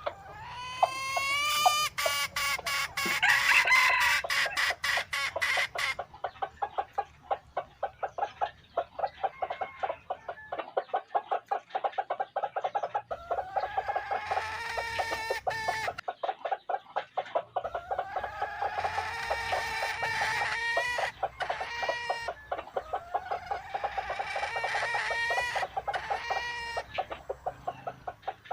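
Dong Tao roosters crowing: four long crows, the first rising steeply in pitch before holding, with gaps of several seconds between them. Clucking and a fast, steady clicking run underneath.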